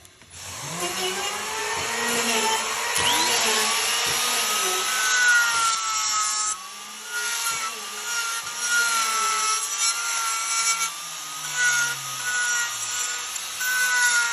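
A tool cutting or rubbing wood, a steady rasping with wavering whining tones over it, easing off briefly about halfway through.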